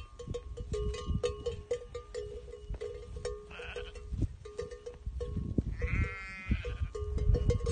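Karayaka sheep bleating: a short, rough bleat a few seconds in and a longer, wavering bleat near the end. A low rumble of wind on the microphone runs underneath.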